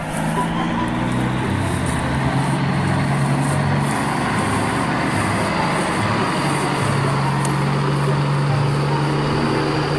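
A train of plastic toy dump trucks rolling over dry grass and straw, a steady rolling rustle. Under it runs a low hum that steps to a new pitch every second or two.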